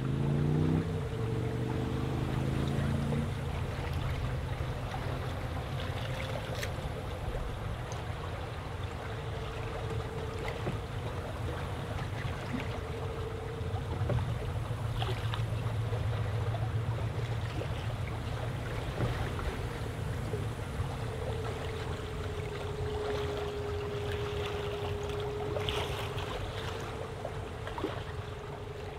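Water rushing along the hull of a small sailboat under way, with wind and a steady low hum underneath.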